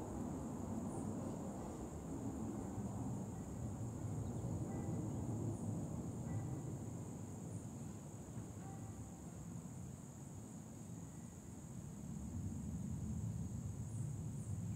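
Distant jet rumble from air-show fighter jets, fading after a pass, dipping about ten seconds in and building again near the end. A steady high insect buzz runs underneath, with a few short bird chirps.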